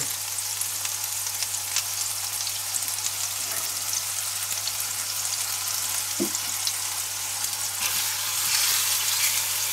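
Thin beef roulade slices searing in hot butter in a stainless-steel pan: a steady frying sizzle that grows a little louder near the end as a second slice is laid in.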